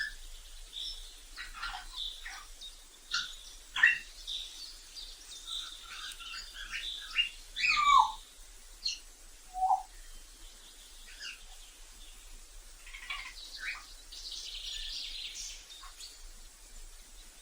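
African grey parrot calling: a string of short chirps and whistles, with a louder whistle that glides down in pitch about halfway through and a harsh, rasping squawk near the end.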